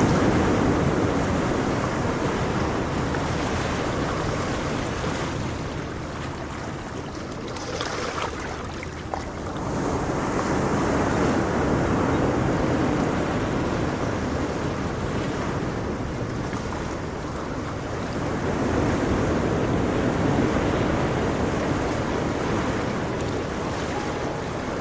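Ocean surf: waves breaking and washing up a shore, the rushing noise swelling and ebbing, with three surges about eight seconds apart.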